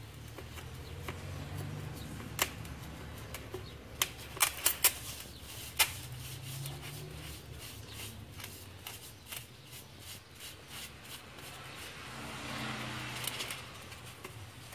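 Rubber-gloved hands pressing and smoothing wet cement mortar into a plastic bowl used as a mould, with rubbing and scraping against the plastic and a few sharp clicks between about two and six seconds in.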